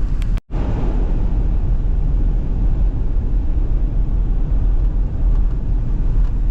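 Loud, steady low rumble. It drops out for an instant about half a second in, then carries on unchanged.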